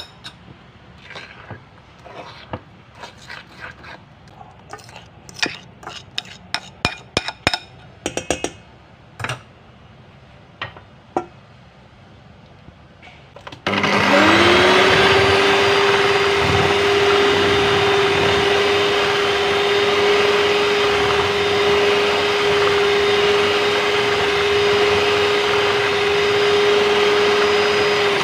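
A metal fork clinking and scraping in a ceramic bowl while stirring mashed banana. About halfway through, an electric hand mixer switches on, spins up and runs steadily at one speed, its beaters whipping a liquid batter in a stainless steel bowl.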